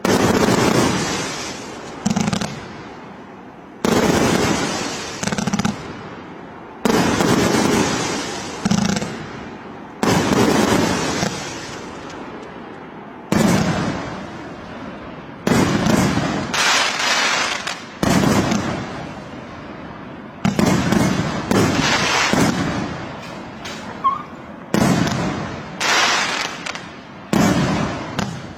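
Fireworks bursting one after another, a sudden bang every second or two, each trailing off over a second or two before the next.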